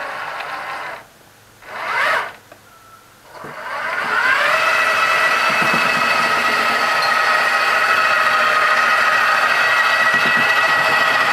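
1/6-scale King Tiger model tank turret traversing: the traverse motor and gearing whine, and the deck's ball-bearing ring grinds over scratched paint, which is the cause of the noise. It stops about a second in, gives a short burst, then starts again with a rising whine that settles into a steady run.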